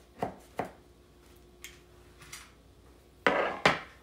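A knife cutting into a cherry cream cheese pie in a foil pie pan: a few light clicks at first, then two loud, short scraping knocks near the end.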